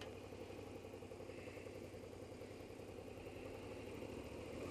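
Suzuki GSX650F motorcycle's inline-four engine idling, low and steady, getting slightly louder near the end.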